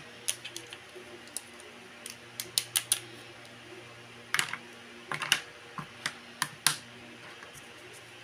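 Small plastic toy kitchen utensils clicking and tapping against a tabletop as they are picked up and set down, in irregular clusters of light clicks.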